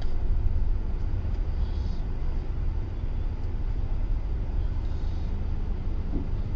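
Steady low road rumble inside a moving car's cabin, with a sleeping baby's faint snoring breaths recurring about every three seconds.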